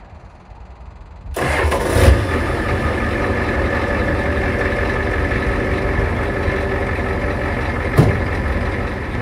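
Ford 6.9 L IDI diesel V8 cold-starting in deep frost on glow plugs: about a second in it cranks briefly and fires, then settles into a steady, loud idle. A single sharp knock sounds near the end.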